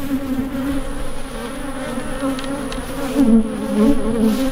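A mass of honey bees buzzing in a steady, wavering hum, with one bee passing close by about three seconds in, its pitch dipping and rising. The bees are stirred up from their hives having just been opened and split.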